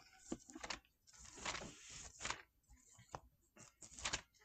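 Thin Bible pages rustling faintly as they are leafed through, in a few short bursts with light clicks of paper against the table.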